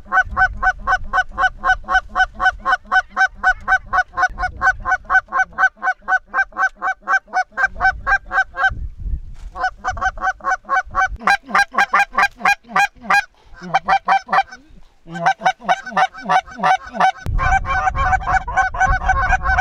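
Geese honking, many short calls a second repeated almost without pause, with two brief breaks partway through.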